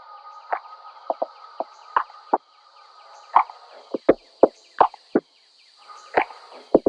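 Irregular sharp knocks or taps with a short ringing pitch, a few a second, over a steady high hiss; the sound cuts off suddenly near the end.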